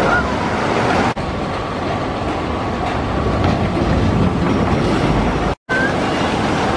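Log flume ride: a steady rush of flowing water with a mechanical clatter from the ride. The sound dips briefly about a second in and drops out for a moment near the end.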